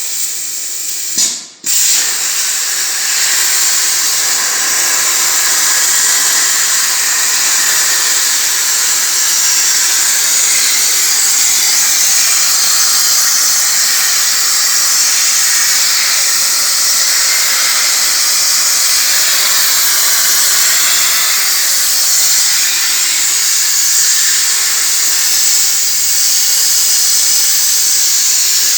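CNC plasma cutter's torch cutting sheet steel: a loud, steady hiss that breaks off for a moment about a second and a half in, then runs on evenly.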